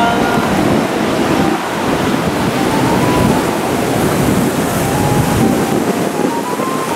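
Strong wind buffeting the microphone over breaking ocean surf, a steady, gusting noise.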